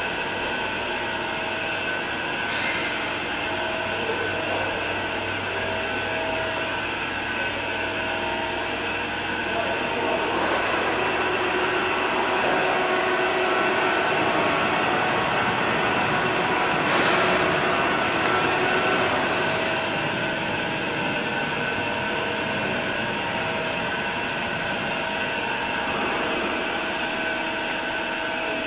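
Meba 435G double-column horizontal bandsaw running under power: a steady mechanical whirr with several steady whining tones. A higher hiss joins for about seven seconds midway.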